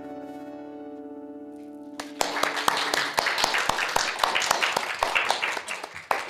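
Final acoustic guitar chord of a song ringing out. About two seconds in it gives way to applause, which lasts about four seconds and fades.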